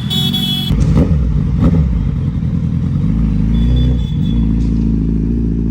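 Suzuki Hayabusa's inline-four engine running through a Brocks aftermarket exhaust, its pitch rising and falling as the throttle changes, with a couple of short knocks about a second in.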